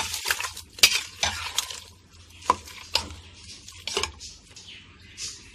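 A metal spoon stirring wet minced meat, soaked chana dal and spices in water inside a metal pressure cooker, scraping along the pot and clinking against its sides. About seven sharp knocks come at irregular intervals, mostly in the first four seconds.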